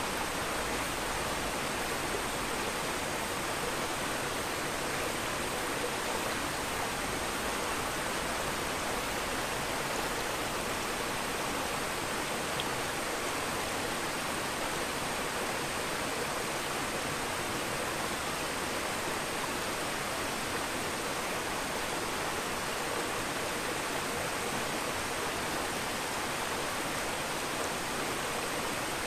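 Steady bubbling rush of an aquarium's aeration, a dense stream of air bubbles rising and breaking at the water surface.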